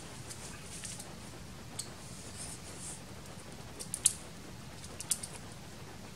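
Leaves being picked by hand from a tree branch: several sharp snaps of stems breaking, the loudest about four seconds in, with the leaves rustling between them.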